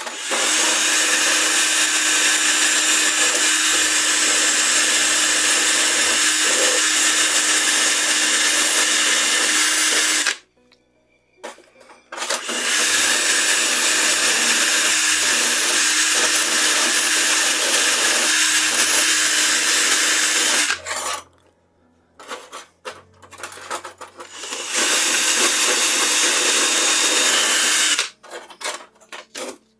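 Electric drill running in three long bursts of about ten, eight and three seconds, with a steady motor whine and the dense hiss of an abrasive working steel secateur parts. A few short knocks fall in the pauses between the runs.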